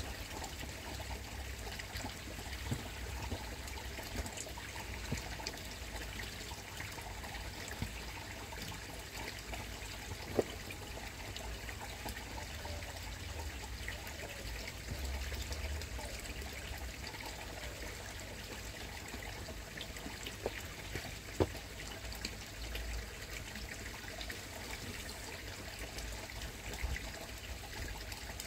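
Koi pond water trickling steadily, with a low rumble underneath and a few faint knocks.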